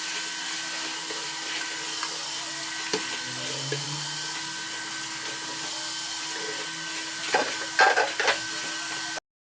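Household vacuum cleaner running steadily with a constant motor hum, with a few knocks and clatters near the end as it bumps against things.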